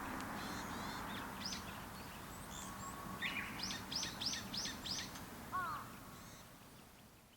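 Wild birds chirping and calling over a steady background hiss, with a quick run of five high chirps in the middle. The sound fades out near the end.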